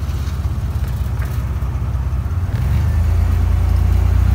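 Flat-fender Jeep engine running with a low, pulsing rumble that grows louder about two and a half seconds in as the Jeep pulls away from a stop sign.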